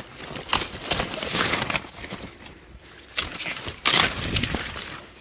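Kale leaves being snapped off their stalks, with several crisp snaps and crackles amid leaf rustling.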